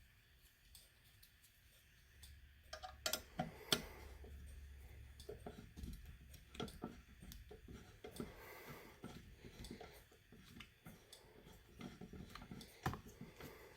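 Clicks and handling noise from a BG-6 fire alarm pull station being reset by hand with an Allen wrench. A few seconds in, irregular clicks begin, with a few sharper ones among lighter fiddling.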